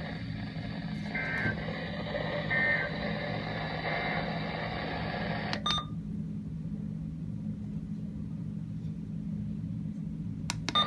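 Weather radio receiver with a steady hum and hiss, broken by three short warbling data bursts a little over a second apart: the SAME end-of-message code that closes a weekly test of the alert system. About halfway through, a click cuts off the hiss, leaving only the hum, and a few clicks come near the end.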